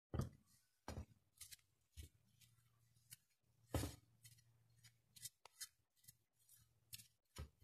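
Faint, scattered taps and scrapes of a plate's edge against a mixing bowl's rim as flour is tipped in, about a dozen short clicks with the strongest near the start and about four seconds in.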